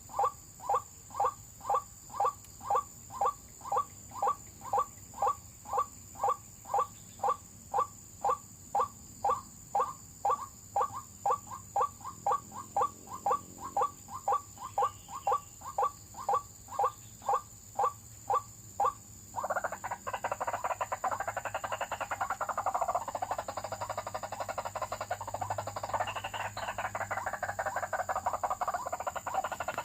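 White-breasted waterhen calls: a single note repeated evenly about twice a second, then abruptly, about twenty seconds in, a dense, raucous chorus of overlapping calls.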